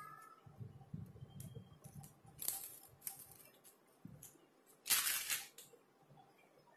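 Clear plastic sleeve crinkling and rustling as a metal-bracelet wristwatch is handled and slid into it. There are two louder crinkles, about two and a half and five seconds in, between faint handling clicks.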